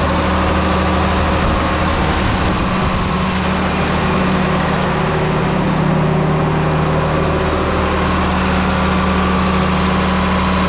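John Deere 4840's freshly overhauled turbocharged six-cylinder diesel running steadily at a fast idle of about 1500 rpm, held there to help seat the new piston rings.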